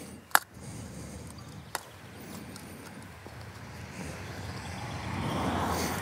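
Handling clicks of a DJI Mini 2 folding drone as its arms are folded in for packing: one sharp click about a third of a second in and another just under two seconds in. A rush of noise swells up over the last two seconds.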